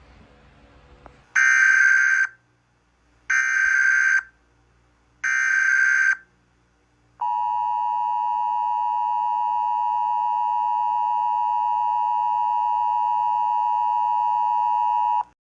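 Emergency Alert System alert opening: three short warbling SAME data-header bursts, about a second each and a second apart, followed by the steady attention tone held for about eight seconds, which cuts off abruptly. Together they signal that an emergency alert is about to be read.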